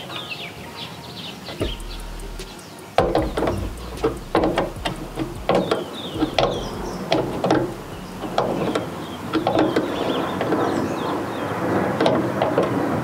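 Irregular clicks and knocks of a hand tool working at the mounting screw of a plastic coolant expansion tank as it is tightened down, starting about three seconds in. Birds chirp early on, and a background rush grows louder through the second half.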